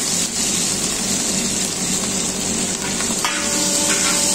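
Shallots, garlic cloves and chillies sizzling as they fry in hot mustard oil in a large metal pan, stirred with a metal spoon. About three seconds in, a steady ringing tone joins the sizzle.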